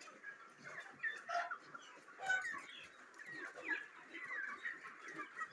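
A flock of young broiler chickens chirping and clucking as they feed, many short calls overlapping.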